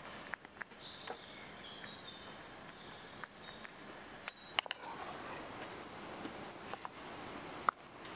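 A saucepan of blueberries simmering on a wood stove: soft scattered pops and clicks over a faint steady hiss, with a few faint high chirps early on.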